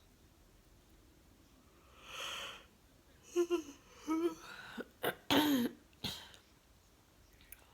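A woman yawning: a breathy intake of air, then several short voiced sounds, the longest gliding down in pitch.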